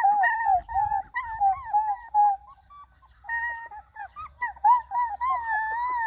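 Young puppy whimpering: a string of short, high, wavering whines, a brief pause about two and a half seconds in, then longer wavering whines.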